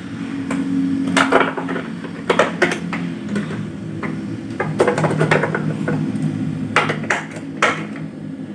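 Irregular knocks, taps and rustles of a kanebo chamois cloth being tucked and pressed around the electrical side of an air-conditioner indoor unit, over a steady low hum.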